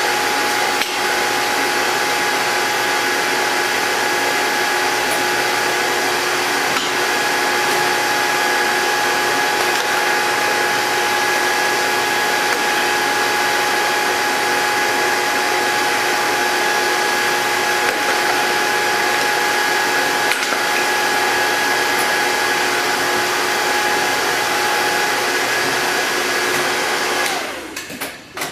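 Powered tube bender's motor running steadily with a whine of a few fixed tones while it bends an unannealed 6061-T6511 aluminum tube, then shutting off near the end.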